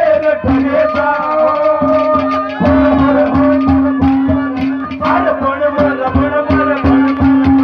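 Instrumental interlude of Haryanvi ragni folk music: a melody instrument holding long notes over fast, steady drumming.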